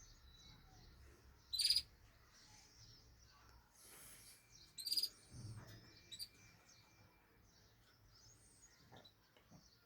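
Small cage birds chirping: two loud, short, high chirps about one and a half seconds and five seconds in, with faint chirping in between and a soft low thump just after the second.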